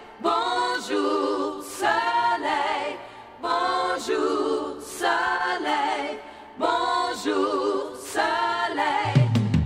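Pop song played from a restored 45 rpm record: voices singing in harmony in short phrases about a second long, with almost no accompaniment. A bass-heavy backing band comes back in near the end.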